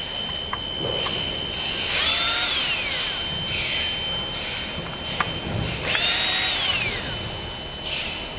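A power drill/driver run in two short spurts, each spinning up, holding briefly and winding down, as screws are driven out during a motor replacement. A thin steady high-pitched tone runs underneath throughout.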